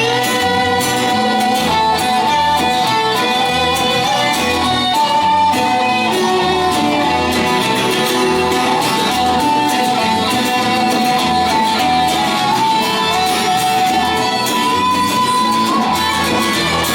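Instrumental band music starts abruptly: guitar and a sustained, violin-like melody over a steady bass beat.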